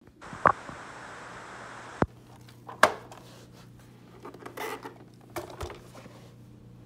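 Plastic vacuum powerheads being handled and turned over on carpet: several sharp clicks and knocks of the housings, with rubbing and scraping between them. A steady hiss in the first two seconds cuts off with a click.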